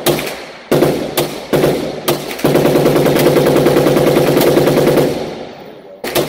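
FN P90 submachine gun firing 5.7×28mm rounds in an indoor range booth: four single shots about half a second apart, then a long rapid full-auto burst lasting about two and a half seconds, then one more shot near the end.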